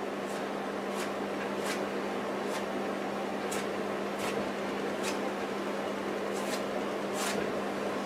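Paint being laid onto a stretched canvas in short scratchy strokes, roughly one every second, over a steady room hiss and low hum.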